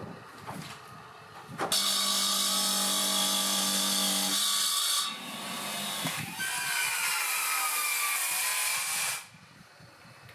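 A few light knocks, then an electric wet tile saw starts up with a steady motor hum about two seconds in. It cuts through a stone veneer piece with a loud grinding hiss, its tone sagging under the load, and stops abruptly about nine seconds in.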